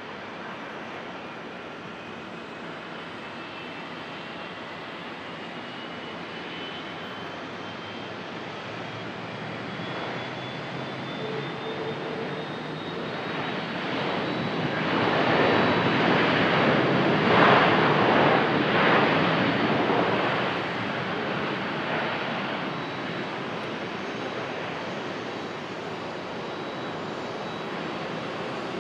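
Boeing 767-300ER airliner's twin jet engines heard from beside the runway during its landing roll. A high whine climbs slowly in pitch over the first ten seconds or so, and the engine noise swells to its loudest about halfway through as the jet passes, then fades down.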